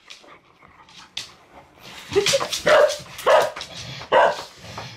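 A dog barking: after a quieter start, four or five loud, sharp barks from about two seconds in.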